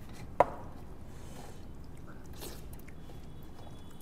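A single sharp clink of a small brass bowl against the brass thali plate about half a second in, ringing briefly, followed by faint chewing and eating sounds.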